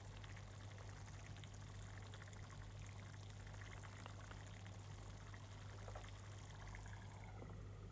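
Faint simmering of a pot of beans stew, with small scattered pops, over a steady low hum.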